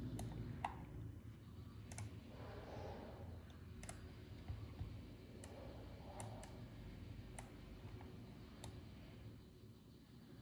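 A computer mouse clicking now and then: about nine separate sharp clicks at uneven intervals, over a low steady hum.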